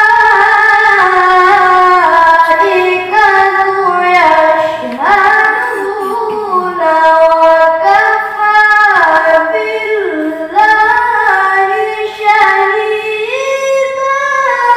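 A child qari reciting the Quran in melodic tilawah style into a microphone: one high voice holding long notes that wind up and down in ornamented runs.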